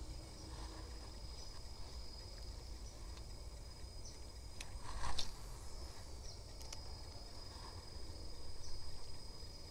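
Insects chirping in a steady, high, thin drone with small repeated chirps, over a low background rumble. A short clatter stands out about five seconds in.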